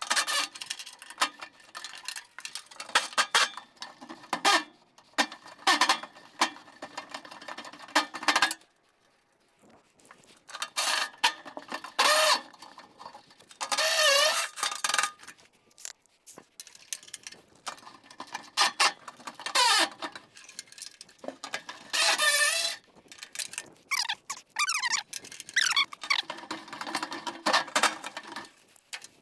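Hand tools loosening fasteners on an old truck's front end: runs of quick ratchet-like clicking and metal knocks, with squeals that rise and fall as seized bolts turn.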